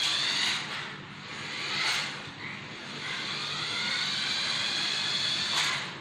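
Small electric motor of a toy remote-control car whining in several surges as it drives across a tiled floor, the pitch rising as it speeds up and falling as it eases off, with a hiss underneath.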